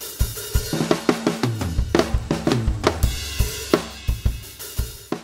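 Drum kit playing a steady groove: a hi-hat pattern played with dynamic variation, accented strokes against softer ones, over bass drum and snare.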